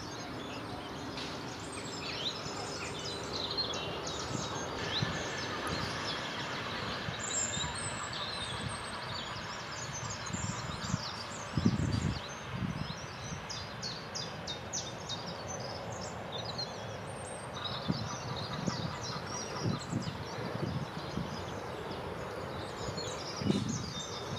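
Small songbirds chirping and singing, many short calls and trills, over steady outdoor background noise. A dull low thump about halfway through and another near the end.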